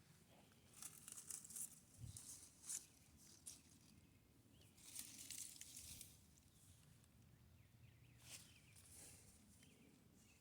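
Faint rustling of leaves and plant stems being brushed through and handled, in a few short bouts.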